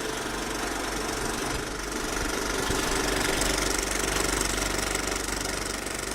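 Viper 3D printer running: a steady mechanical buzz from its motors and fans, with a constant hum, swelling slightly midway and easing off near the end.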